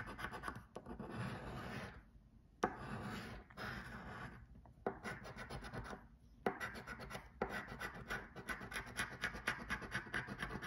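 A coin scraping the latex coating off a paper lottery scratch-off ticket: quick rasping strokes in several runs, with short pauses between them.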